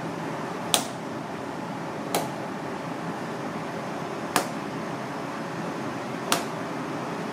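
Four sharp clicks or taps, about two seconds apart, over a steady background hiss of kitchen room noise.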